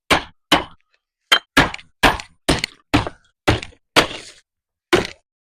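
Sledgehammer blows striking a retaining wall in quick succession, about two a second, roughly ten sharp hits with short pauses near one second in and again near the end.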